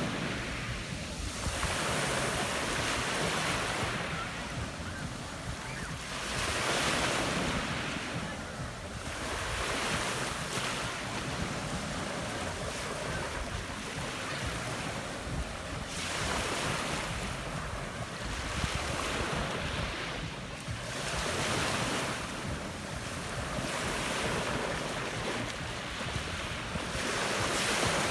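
Small sea waves washing onto a pebble beach, each one a swelling hiss that fades every few seconds. Wind rumbles on the microphone underneath.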